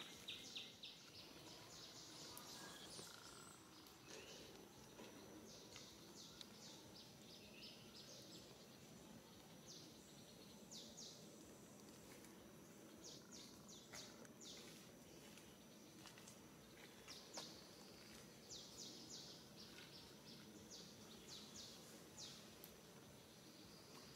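Faint outdoor background with repeated quick runs of short, high chirps from small animals such as birds, over a thin steady high tone.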